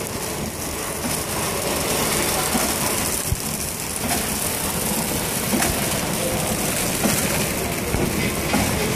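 KT-600X horizontal flow-wrap packaging machine running, wrapping parts in clear film: a steady mechanical clatter with occasional sharp clicks.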